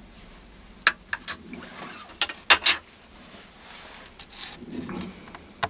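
Metal tools clinking and knocking on the steel milling pallet of a lathe as a ring spanner and a metal bar are handled and set down. About half a dozen sharp knocks come in the first three seconds, the loudest near the middle with a short metallic ring.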